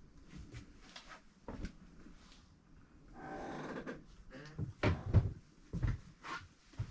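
Knocks and bumps inside a yacht's cabin, with a creak lasting about a second near the middle, followed by several louder low thumps.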